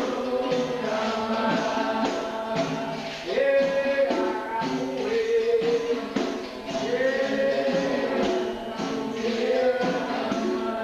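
Capoeira roda music: singing over berimbaus and pandeiros.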